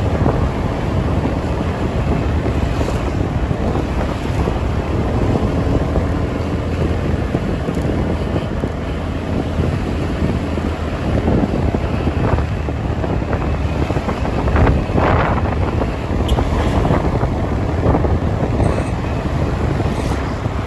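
Steady wind rushing and buffeting over the microphone while travelling along a street, with a low rumble of traffic underneath.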